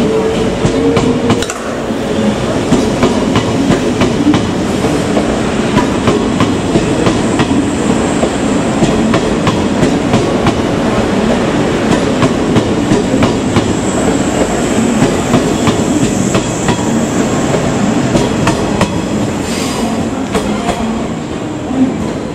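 JR West 381 series electric train rolling past, with a steady rumble and wheels clacking repeatedly over rail joints and points.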